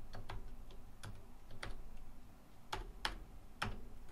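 Computer keyboard being typed on: a run of irregular keystroke clicks, a few struck harder than the rest.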